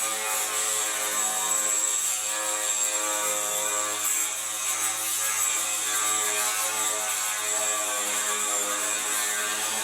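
Electric drill with a 1/4-inch bit running steadily, drilling plug-weld holes through a sheet-metal truck roof skin, a continuous motor hum with a high whine.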